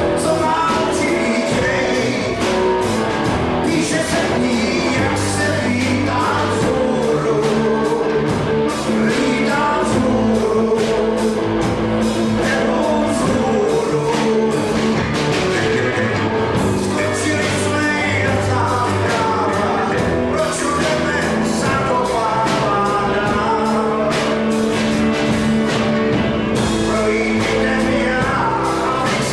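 Live band playing rock and roll on electric guitar and keyboard, with a steady beat.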